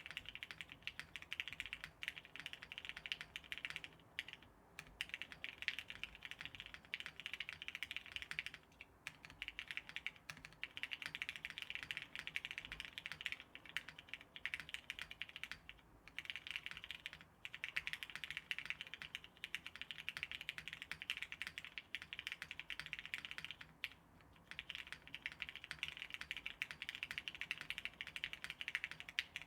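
Continuous fast typing on a mechanical keyboard with lubed, filmed Hyperglide Cherry MX Black linear switches, a polypropylene plate and top mount, giving a stream of soft, muted key clacks with a few brief pauses between bursts.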